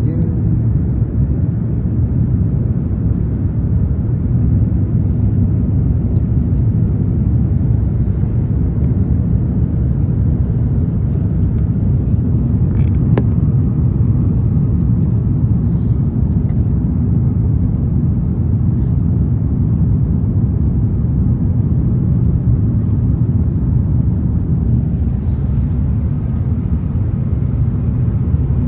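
Steady low rumble of a jet airliner heard from inside the cabin.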